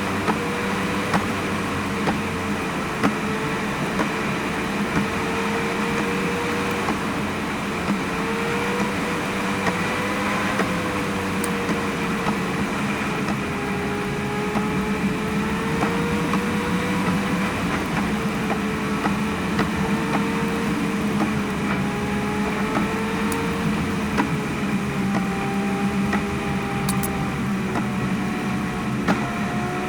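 Car engine running steadily at cruise with road noise, its pitch drifting slowly up and down as speed changes.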